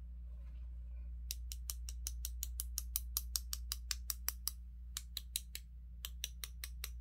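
A paintbrush tapped rapidly against a second brush to spatter white acrylic paint as stars: a quick run of sharp clicks, about five a second, starting about a second in, with a brief pause near the end.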